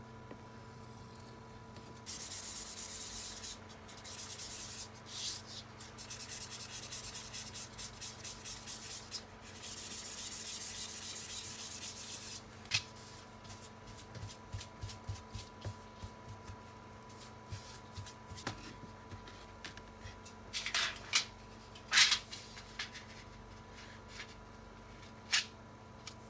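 Rubbing or sanding strokes worked by hand on the piece for about ten seconds, then scattered light taps and clicks, with a few sharper clicks near the end.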